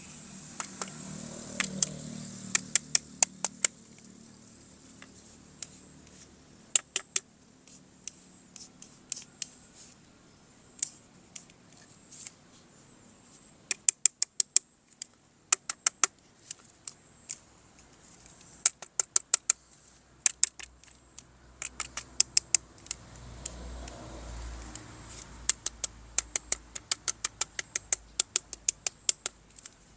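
Runs of quick, sharp clicks from small hard objects being handled, several clicks a second in bursts with short pauses between.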